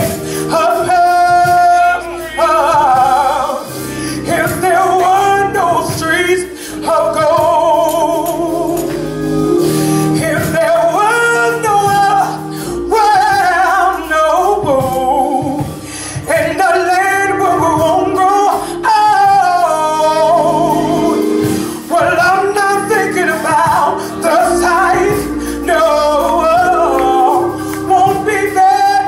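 Gospel praise team singing live into microphones, a man's voice leading, over steady held accompaniment.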